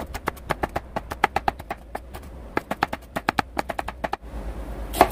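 Chef's knife slicing red chili peppers on a wooden cutting board, a quick run of tapping strokes about six or seven a second that stops about four seconds in. One louder knock follows near the end.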